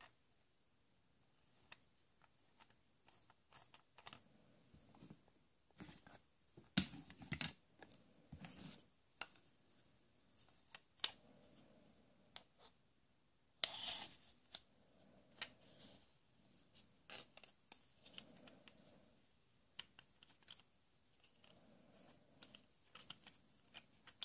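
Plastic toys being handled: scattered clicks, scrapes and rustles, with louder clatters about seven and fourteen seconds in.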